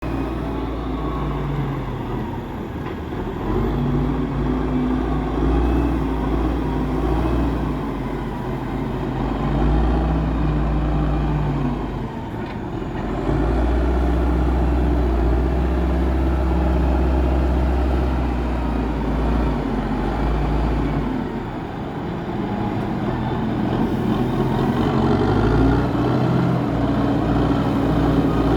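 Heavy engine running and revving up and down several times, as when working a log-loading job. It is held at higher revs for several seconds in the middle and picks up again near the end.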